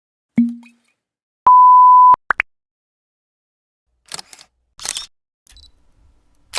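A run of sound-effect samples: a short low thud, then a steady censor-style beep tone lasting well under a second, the loudest sound, followed by two quick rising blips. After a gap come a few short hissy bursts.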